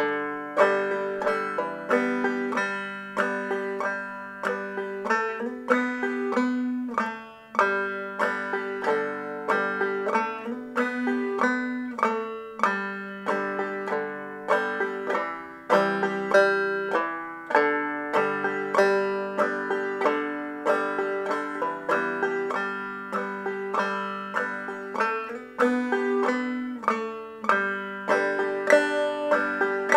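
Five-string Gibson resonator banjo played solo in clawhammer style, an old-time tune picked through slowly and evenly, note by note with brushed strums and ringing open strings.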